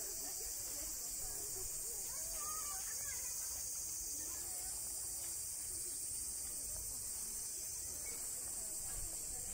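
Steady, high-pitched drone of a summer cicada chorus, with people talking faintly in the background.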